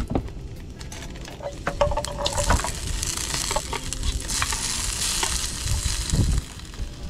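Garlic frying in oil in a small stainless steel pan, stirred and scraped with a wooden spatula that clicks against the pan. The sizzle turns louder about two seconds in as chopped tomatoes go into the hot oil, and there is a dull knock near the end.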